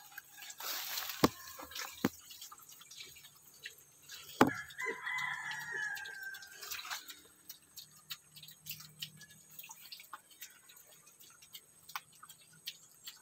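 A rooster crows once, a single long call about five seconds in. Two sharp knocks come before it, the second just ahead of the crow, amid scattered small clicks around the pen.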